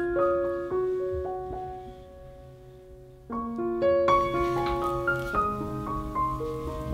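Background piano music: a gentle melody of held notes that dies away about two seconds in and starts again a little after three seconds.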